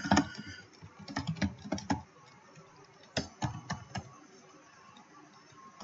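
Computer keyboard typing in short bursts of key clicks, stopping about four seconds in.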